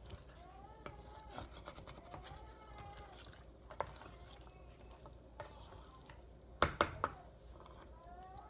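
A cat meowing several times, short rising-and-falling meows, mostly in the first three seconds and again near the end. A utensil knocks against the cooking pot a few times, loudest in a quick cluster about seven seconds in.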